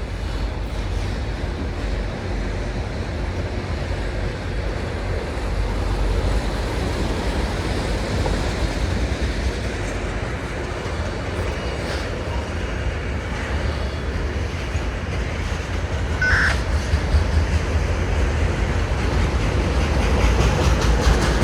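Freight cars of a long manifest train rolling past: a steady low rumble of steel wheels on rail with clickety-clack over the rail joints. There is a short high squeal about three quarters of the way through.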